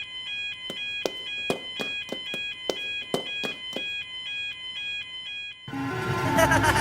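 Level-crossing warning bell ringing in a steady two-tone ding-dong rhythm, a struck tone every half second or so. Near the end it gives way to louder music and noise.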